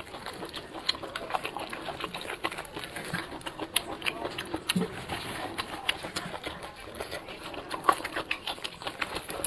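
Close-miked chewing and mouth sounds while eating: irregular small wet clicks and smacks, several a second.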